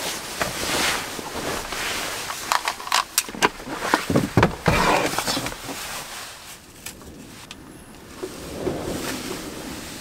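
A thick duvet and bedding rustling as someone moves about in bed, with a run of soft knocks and thumps in the middle few seconds.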